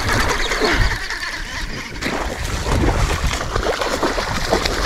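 A hooked snakehead (murrel) thrashing and splashing at the water surface while it is played on a baitcasting rod, in repeated irregular splashes. Low wind rumble on the microphone runs underneath.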